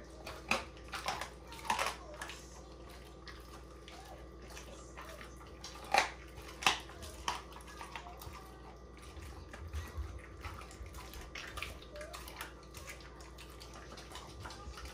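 A pit bull-type dog licking at the floor and smacking its mouth: scattered wet clicks and slurps, with the loudest ones about six and seven seconds in.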